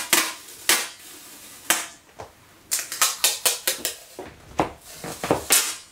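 A roll of parcel tape being handled and peeled: a series of sharp snaps and crackles at irregular intervals, bunched most thickly about halfway through.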